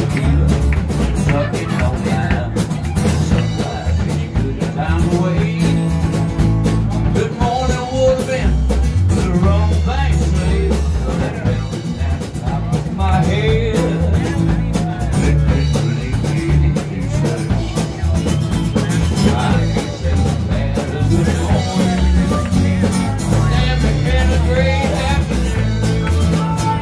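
Live blues-rock band playing: strummed acoustic guitar, electric guitar and drums, with a man singing and a harmonica played into a mic.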